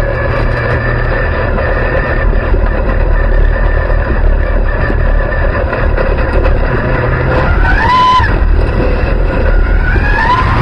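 Dirt-track race car's engine running loud at low speed, heard from inside the cockpit, with a brief rise and fall in revs about eight seconds in and the revs climbing near the end as the car accelerates.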